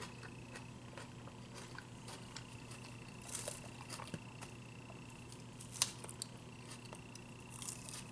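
Quiet eating sounds: soft crunches of lettuce salad being chewed and a few light clicks of a plastic fork against a plastic salad container, the sharpest click about six seconds in. A faint steady hum runs underneath.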